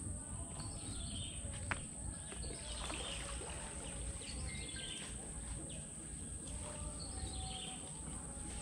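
Outdoor ambience of birds giving short falling calls every couple of seconds over a low wind rumble and a steady high-pitched drone, with one sharp click about two seconds in.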